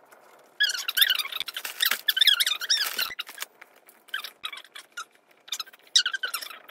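High-pitched, squeaky chipmunk-like chatter: children's voices sped up in fast-forwarded footage, the pitch wobbling quickly, in several stretches with short pauses.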